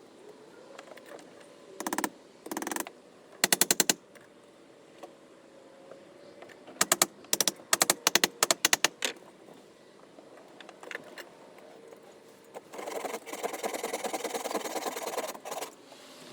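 A power tool going in short bursts of rapid hammering clatter: three brief bursts, a quick cluster of bursts in the middle, and a longer run of about two and a half seconds near the end.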